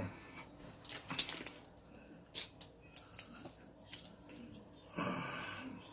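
Wet eating sounds from a saucy shrimp boil: scattered smacks, sucks and small clicks at the mouth and hands. About five seconds in there is a short louder murmur of voice.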